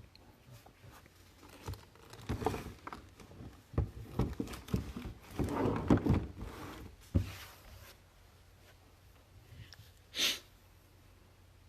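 Irregular rustling and knocking of objects being handled, busiest in the middle, followed by one short hiss-like burst near the end.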